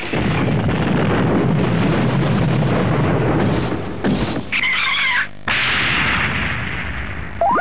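Cartoon sound effects: a long noisy rumble, then a short warbling tone about five seconds in, followed by a hiss that fades away.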